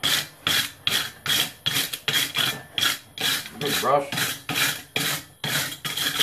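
Wire brush scrubbed back and forth over hot steel tongs on an anvil, a rhythmic scratching of about two to three strokes a second. The brushing knocks the forge scale off the freshly forged steel.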